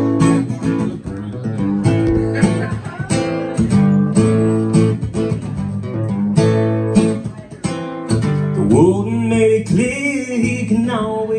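Acoustic guitar strummed steadily, chords ringing, playing the instrumental opening of a country song.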